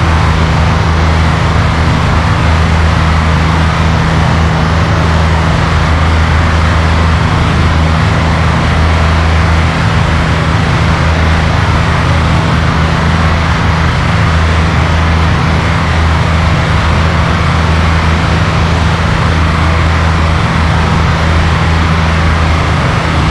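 Piper Cherokee 140 in cruise flight: its four-cylinder Lycoming O-320 engine and two-blade propeller give a steady, unchanging drone. Heard from a camera on the wingtip, with a constant rushing noise over the drone.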